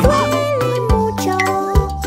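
Children's song: a voice singing a melodic line over a bouncy backing track with a steady beat.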